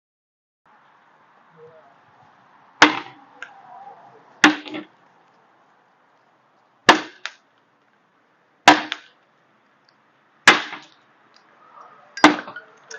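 Ice balls the size of hailstones striking stone-coated metal roof tiles: six sharp hits about every two seconds, each followed by a brief clatter, over a faint steady hiss.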